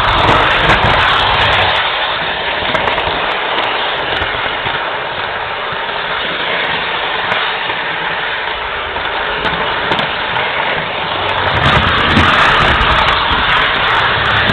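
Steady rushing noise from the model train's onboard camera audio as the train runs along its track, with a low rumble that weakens in the middle and grows again after about eleven seconds.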